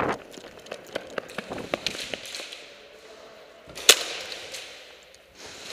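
Airsoft guns firing: scattered short snapping clicks, then one much louder, sharp crack about four seconds in.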